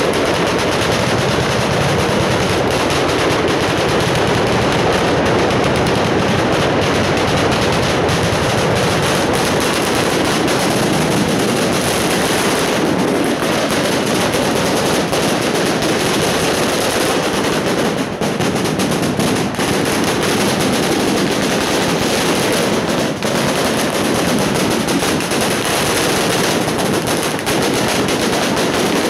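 Long strings of firecrackers going off continuously: an unbroken, rapid crackle of bangs, as fast as machine-gun fire, that never lets up.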